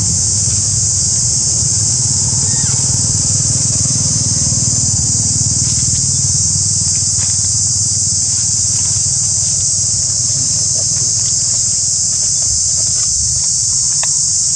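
Steady high-pitched insect drone over a constant low rumble like a running engine, with a few faint clicks.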